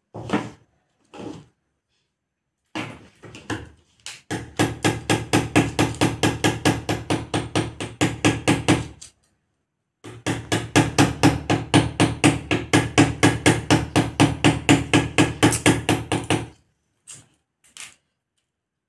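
Cauliflower being sliced against a boti, the upright curved floor blade: quick, regular crunching cuts, about four a second, in two long runs with a short pause between them.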